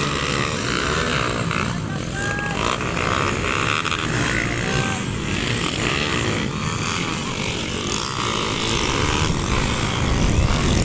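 Underbone motorcycles racing on a dirt motocross track, their small engines revving up and down as the riders work through the course.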